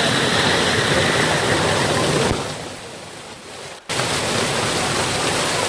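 Rushing water, a steady even noise that drops away about two and a half seconds in and cuts back in suddenly about four seconds in.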